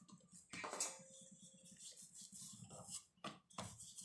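Faint rubbing of a paratha dough ball being pressed flat by hand on a wooden rolling board, with a louder scrape about a second in and a few light knocks near the end as a wooden rolling pin is put to the dough and starts rolling.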